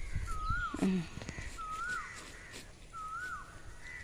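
A bird calling over and over, a clear whistle that rises and then drops in pitch, four times at even intervals about a second and a half apart.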